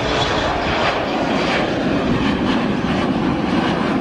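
Twin rear-mounted turbofan engines of a Bombardier CRJ regional jet at takeoff power as it climbs out after lift-off: a steady, loud rush of jet engine noise.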